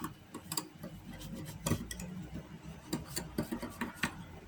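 Scattered light clicks and taps with faint rubbing as the disassembled parts of a laptop stand's cooling fan are handled and wiped.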